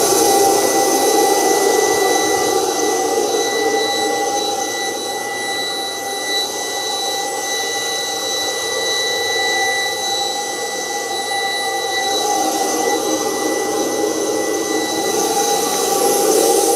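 Capstone C65 microturbine running in its cool-down cycle: a steady high-pitched whine over an even rush of air, dipping slightly midway and swelling again near the end.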